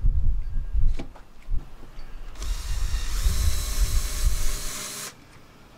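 Cordless drill boring into a kayak motor's rudder bracket, running steadily for a little under three seconds from about two and a half seconds in, then stopping abruptly. Before it there is a low rumble and a single click about a second in.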